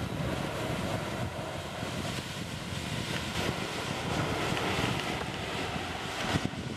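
Wind buffeting the microphone: a steady rushing noise with a short knock about six and a half seconds in.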